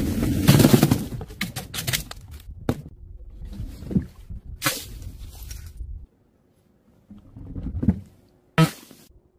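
Plastic drink bottles tumbling and clattering down a board, a dense run of knocks and scraping that thins out into scattered clicks. After a break, a watermelon rolls down a sloping wooden board with a rising rumble and lands with one sharp, loud impact near the end.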